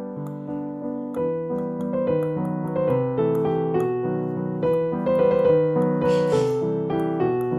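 Background piano music, a steady run of chords and melody notes, with a brief soft hiss about six seconds in.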